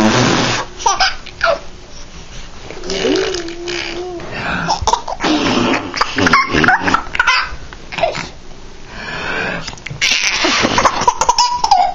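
A 21-week-old baby laughing in repeated breathy bouts, with a short held vocal sound about three seconds in.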